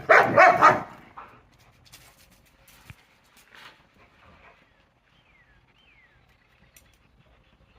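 A dog barking in a quick burst of about three loud barks right at the start, then quiet with a few light clicks and two short falling chirps.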